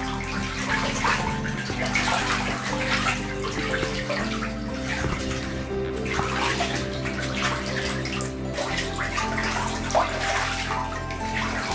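Young ducks bathing in a shallow tub of water, with repeated splashes as they dip and flap, over steady background music.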